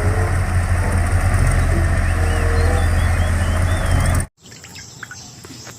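Steady engine-like rumble that cuts off abruptly about four seconds in, with a few faint bird chirps in the middle.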